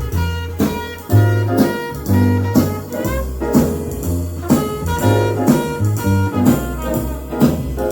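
Upbeat jazz with saxophone and brass over a walking bass and drum kit, with a steady swing beat.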